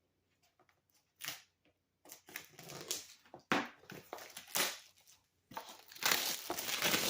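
Retail packaging of a Surface Signature Keyboard being opened by hand: irregular crinkling, tearing and scraping of plastic and cardboard. It starts with a short rustle after a near-quiet first second and is loudest near the end.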